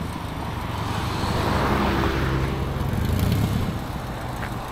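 A car engine running close by, with a steady low hum and a rushing noise that swells and fades around two seconds in.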